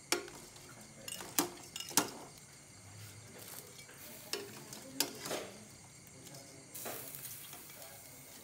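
Sharp knocks and clicks as cooked prawns and a hand strike a plastic basin and a plate, about six in all, the loudest about two seconds in. A high hiss comes in for the last second and a half.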